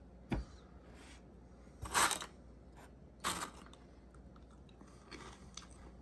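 Crunchy smoked Kappa Ebisen shrimp-flavoured snack sticks being bitten and chewed: a few separate crisp crunches, the loudest about two seconds in, another a second or so later and a faint one near the end.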